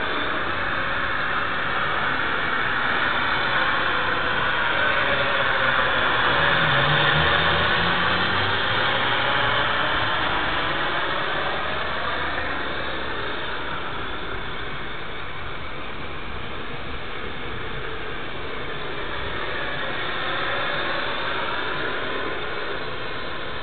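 Quadcopter drone's propellers buzzing steadily as it flies overhead. The pitch of the buzz sweeps as the drone moves about, and it grows louder about a third of the way in and again near the end.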